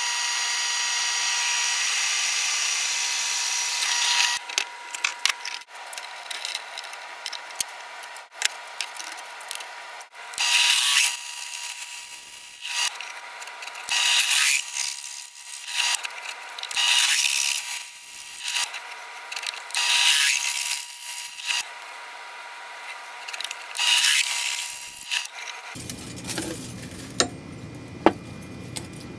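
A drill running, its twist bit cutting through an aluminium adapter plate. A larger bit then countersinks the hole in short cuts about every three seconds. The drill's steady whine stops near the end.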